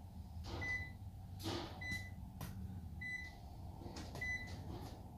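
An electronic alarm beeping steadily, one short high beep a little over once a second, over a low steady hum, with a few faint knocks from handling.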